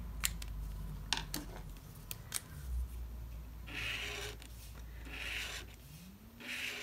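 A few light clicks of pens being handled, then a Tombow dual brush pen's felt brush tip scratching across watercolour paper in three strokes about a second apart.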